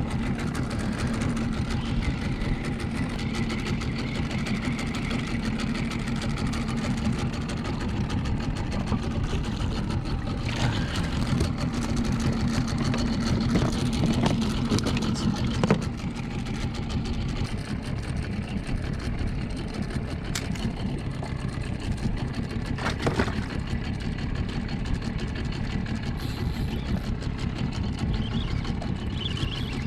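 Small boat outboard motor running steadily at idle, its note dropping slightly about halfway through, with a few faint knocks.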